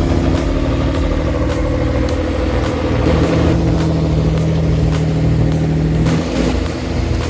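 Heavy machine's engine running steadily under load, its pitch shifting partway through.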